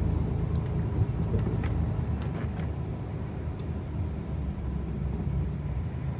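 Steady low rumble of a semi-truck's engine and road noise, heard from inside the cab while driving, with a few faint ticks.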